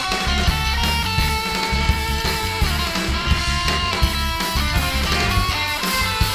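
Free-jazz noise-rock band playing: guitar over a heavy bass line and drums.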